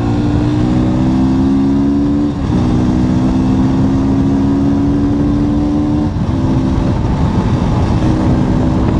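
Motorcycle engine pulling away and working up through the gears: its pitch climbs slowly, drops with a gear change about two and a half seconds in and again about six seconds in, then holds steady.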